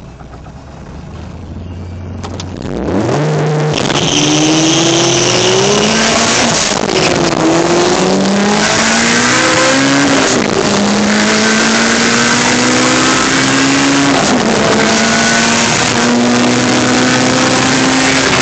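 Turbocharged Honda B16 VTEC four-cylinder in a Honda CRX, heard from inside the cabin, launching hard about three seconds in and pulling through the gears on a drag run. The engine's pitch climbs, drops at each of three upshifts, and climbs again, with a high hiss over it.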